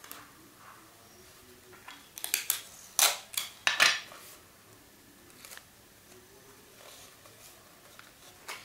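A sheet of paper being rolled into a tube and handled, with a cluster of sharp rustles between about two and four seconds in.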